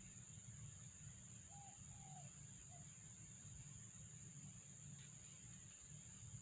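Quiet outdoor ambience: a steady high-pitched insect drone of crickets or cicadas, with three short bird chirps about a second and a half in, over a faint low rumble.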